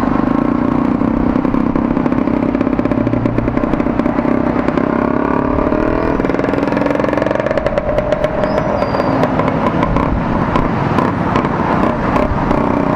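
The single-cylinder engine of a Bajaj Avenger 220 motorcycle running steadily at low speed in slow traffic, with a bus's engine close alongside. The engine note rises a little about halfway through.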